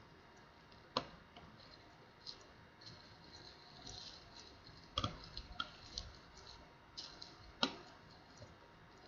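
Scattered sharp clicks and lighter ticks of small hard parts being handled during a tablet screen repair. The three louder clicks come about a second in, about five seconds in and near the end.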